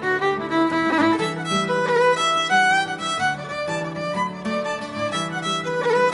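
Background music led by a violin, playing a continuous run of notes with some wavering and sliding pitches.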